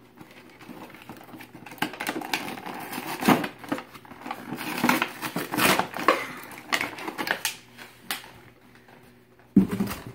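Plastic toy packaging being handled and opened: irregular crinkling and clicking, with a sharp knock near the end.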